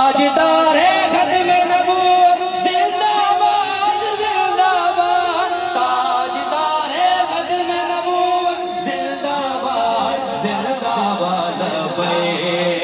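Men's voices singing a drawn-out devotional chant with long held notes.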